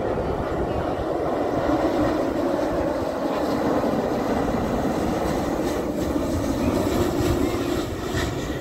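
Airbus A350-900's Rolls-Royce Trent XWB jet engines on final approach with gear down, a loud steady roar with a low drone in it, easing slightly near the end as the airliner passes.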